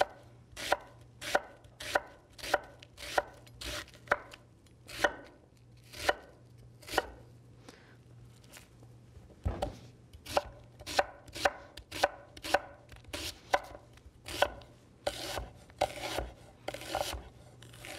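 Chef's knife slicing a red onion into long slices on a wooden chopping board: a steady run of knife strikes on the board, with a short break about halfway, quickening near the end.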